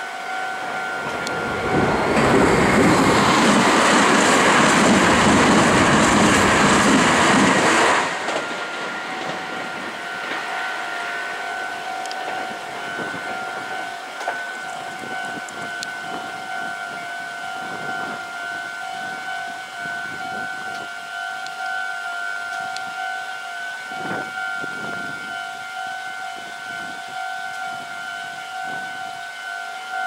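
Japanese level-crossing warning bell ringing in a steady pulsing pattern while a Meitetsu electric train passes close by. The train noise comes in loud about two seconds in and stops abruptly some six seconds later. The crossing bell keeps ringing on its own afterwards.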